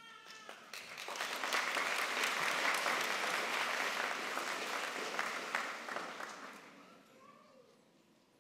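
Audience applauding in a large auditorium. The clapping swells about a second in, holds steady, then dies away over the last couple of seconds.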